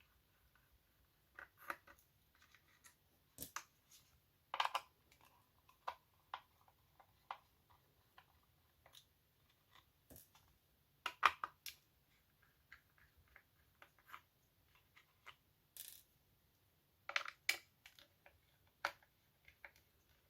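Irregular clicks, taps and scrapes of hands working on a small plastic wireless charger as it is taken apart: screws coming out and plastic parts being handled and set down, with a few louder clacks.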